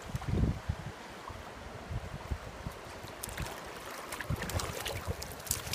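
Shallow stream water running, with a hooked fish splashing at the surface in a small bursts throughout. Wind buffets the microphone with a low rumble about half a second in.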